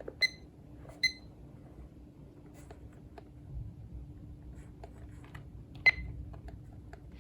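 Weather radio's key beeps as its buttons are pressed: three short electronic beeps, two about a second apart near the start and one about six seconds in, with faint button clicks between them.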